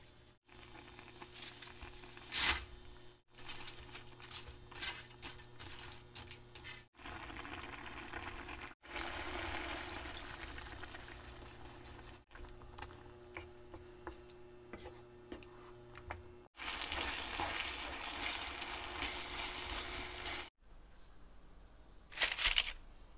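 Cooking sounds in short cuts. First, soft bread is torn and crumbled out of a hollowed loaf, with a loud crackle of crust. Then a frying pan of spaghetti, chicken and mushrooms cooks in liquid, with steady bubbling. Near the end there is a brief crunch as a hand squeezes the bread-loaf bowl.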